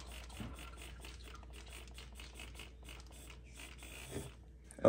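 Handheld battery-powered milk frother running with its whisk in a mug of coffee: a steady, fairly quiet whir with fast faint ticking throughout.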